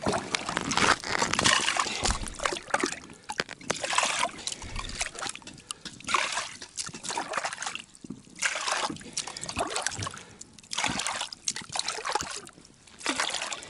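River water sloshing and splashing as a small cooking pot is dipped in and filled, in repeated surges about every second or two.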